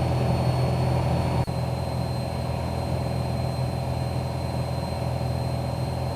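Steady cockpit drone of a single-engine piston Commander's engine and propeller at leaned cruise power. There is a brief dropout about a second and a half in, and the drone is a little quieter after it.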